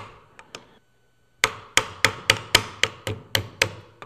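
A brass punch tapped to drive the trigger pin into an AR-15 lower receiver. Two light clicks come first, then from about a second and a half in a quick run of about nine sharp metallic taps, roughly three to four a second.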